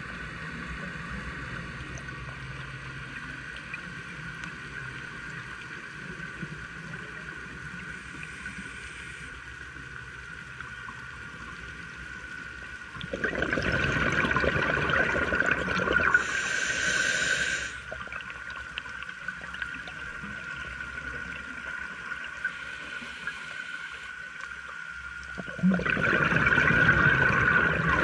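Underwater ambience picked up by a camera in its housing, a steady hum, broken twice by a scuba diver's breathing: a loud bubbling exhale lasting a few seconds, followed by a short hiss of the regulator on the inhale.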